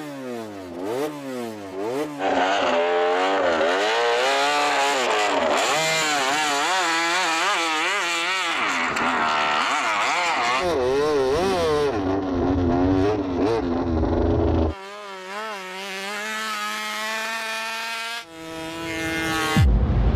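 Repsol Honda RC213V MotoGP bike's V4 engine revving hard, its pitch rising and falling in quick swoops as the throttle is worked, then holding steadier revs for the last few seconds.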